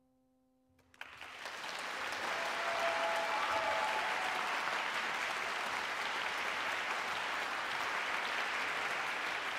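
Audience applause starting about a second in and quickly building to steady clapping, just after the last faint ring of a grand piano's final chord.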